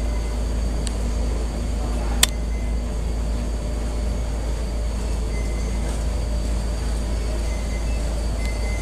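Steady low rumble of airport ramp background noise with faint steady whines, and a single sharp click about two seconds in.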